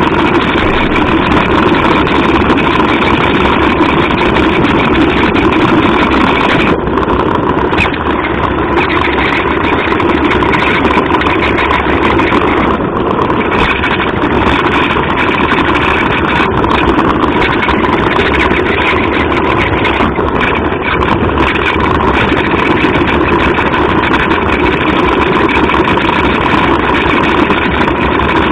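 Small electric drive motor and gears of a little floor-scurrying vehicle, running steadily and loud, as picked up by its own onboard microphone.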